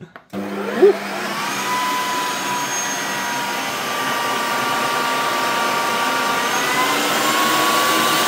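Ninja Creami Deluxe ice cream maker running its sorbet program on a frozen pint of peach sorbet: the motor starts whirring about a quarter second in, with a brief louder blip just after start-up, then runs steadily with a whining tone that shifts a little higher and louder near the end.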